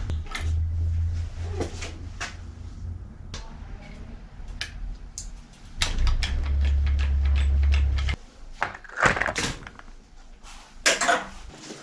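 Scattered clicks and light metal clinks of hand tools on a bicycle's side-pull caliper brake as the brake pad is adjusted. A low hum comes and goes and is loudest for about two seconds past the middle.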